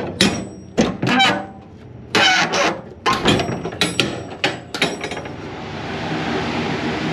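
Wooden firewood kiln door being unlatched and swung open: a run of clicks, knocks and scrapes, then from about five seconds in a steady rushing noise.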